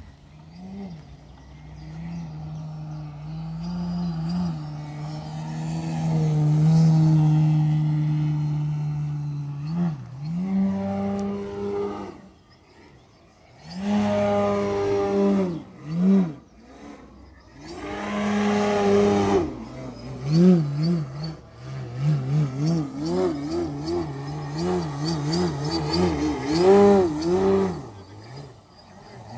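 Extreme Flight Yak 54 110" electric aerobatic RC plane flying: its Dualsky GA8000 motor and 28x12 propeller drone, rising and falling in pitch with the throttle. The drone drops almost to nothing about twelve seconds in, surges back twice, then wavers quickly up and down in pitch over the last several seconds.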